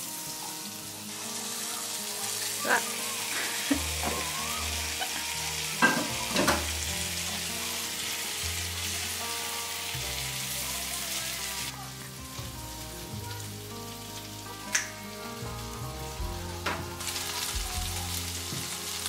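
Raw meatballs frying in foaming butter in a nonstick frying pan, with a steady sizzle that eases off somewhat past the middle. A spatula scrapes and taps in the pan, giving a few sharp clicks as the balls are placed and moved.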